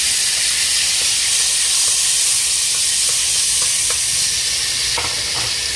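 Chopped garlic sizzling in hot oil in a pot, a steady frying hiss, with a few light taps of a wooden spoon stirring it.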